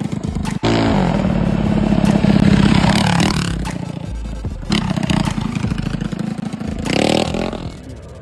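Mini bike's engine revving as it is ridden. The pitch climbs steeply about half a second in and holds high until about three seconds, then falls away, with shorter rises around five and seven seconds.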